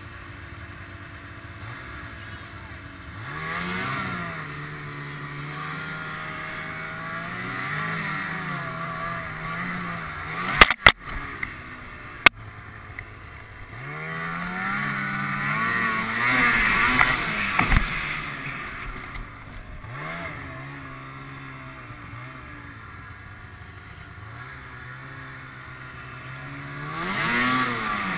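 Ski-Doo snowmobile engine running and revving up and back down several times, like a sled being ridden with the throttle worked on and off. A couple of sharp, loud knocks land a little under halfway through.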